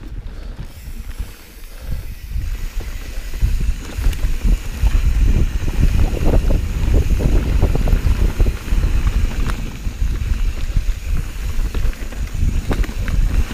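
Wind buffeting the camera microphone, mixed with tyre roll and rattle from a Santa Cruz Hightower 27.5+ mountain bike riding a forest trail. It grows louder about three to four seconds in, with a few sharp clicks near the end.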